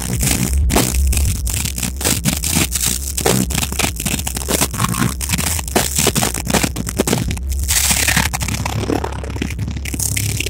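A rock band playing loud live music, with electric guitar and drums. The phone microphone is overloaded, so the sound is heavily distorted and crackling.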